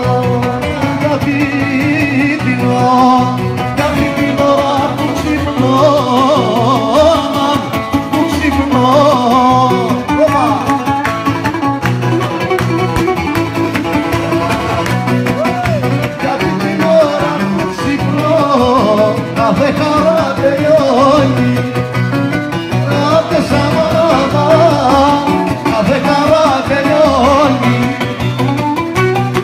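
Live Greek folk music: acoustic guitars and a plucked string instrument playing a tune over a steady beat.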